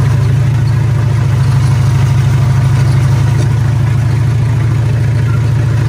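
Komatsu D21A bulldozer's diesel engine running steadily with a deep, even drone, during a test of its steering brakes, which are not working.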